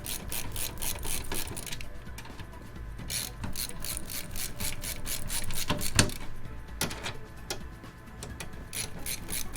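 Screws being driven into the PC case with a ratcheting screwdriver: quick runs of clicks, several a second, in a few bursts, with one louder knock about six seconds in.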